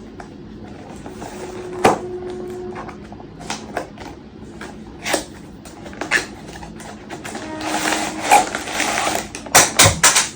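A tripod's cardboard box and plastic packaging being opened and handled by hand: scattered clicks and knocks, with a longer stretch of rustling about three-quarters of the way through and a cluster of sharp clicks near the end.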